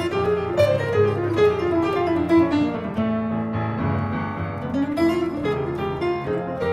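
Jazz piano and guitar duo playing a flowing melodic passage: a run of notes falls, a chord is held, then the line climbs again near the end.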